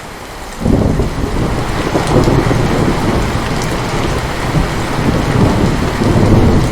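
Heavy rain falling steadily, with a long rumble of thunder that breaks in suddenly under a second in and keeps rolling loudly.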